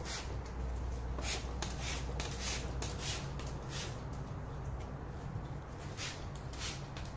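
Alta 500 hermetic trigger spray bottle being squeezed, giving short hissing sprays: several in quick runs through the first four seconds, then two more after a pause. A steady low hum runs underneath.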